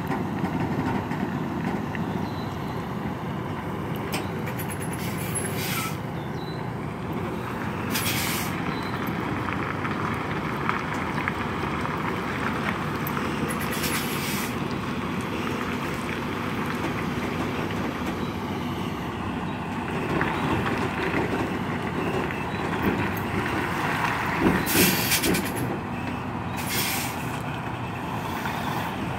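Semi truck's diesel engine running steadily at low speed while backing a trailer, with several short hisses of air from its air brakes.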